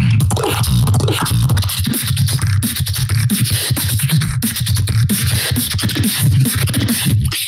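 Solo vocal beatboxing into a handheld microphone: a deep, nearly continuous bass line with quick clicks and snare-like hits over it.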